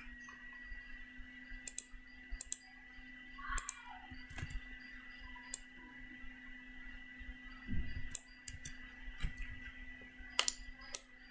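Computer mouse clicks: about a dozen scattered single clicks, over a faint steady hum and a thin high whine.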